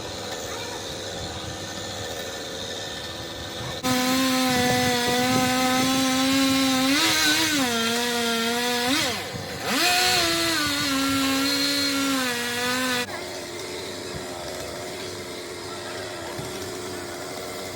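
Chainsaw running at high revs for about nine seconds, starting and stopping abruptly. Its pitch sags briefly, then drops away and climbs back near the middle. A lower, steady engine hum runs before and after it.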